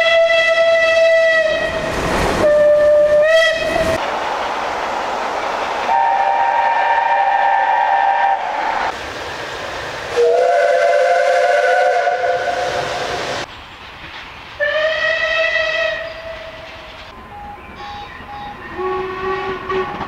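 Steam locomotive whistles from several engines in turn: a long single-note blast that breaks off, two short toots, then multi-note chime whistles sounding as chords, and another single blast. Hiss and rolling train noise fill the gaps. Near the end, quieter short toots repeat in a quick run.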